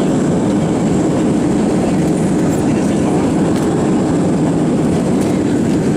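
Steady roar of an Airbus A320's engines and airflow, heard inside the passenger cabin.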